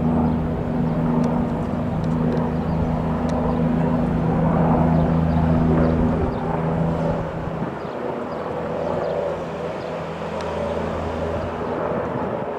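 Twin-turbine AgustaWestland AW169 helicopter flying past, with a steady drone of turbines and rotor. Its low hum drops away just past halfway, leaving a thinner rushing noise.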